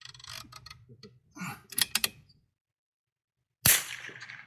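Bolt-action .22 rimfire precision rifle being worked: a run of sharp metallic clicks and clacks from the bolt, then a single sharp shot about three and a half seconds in that rings out briefly.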